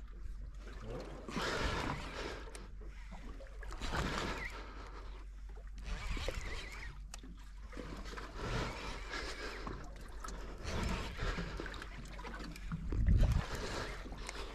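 Water sloshing and lapping against the side of a boat hull, in irregular surges every couple of seconds.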